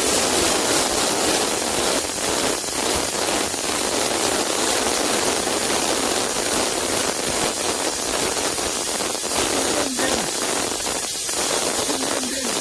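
Steam nozzle of an 11-litre steam thawing machine, used as a steam cleaner, hissing steadily as hot, high-pressure steam is sprayed onto a car seat's upholstery to lift old grime.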